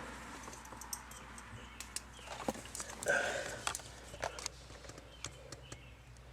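Scattered light clicks and taps with some rustling: handling noise from someone reaching around under a truck's dashboard. There is a short pitched sound about three seconds in.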